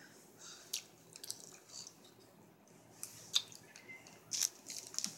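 Faint wet mouth clicks and smacks from sucking on a cherry hard candy, with a few short, sharp ticks scattered through.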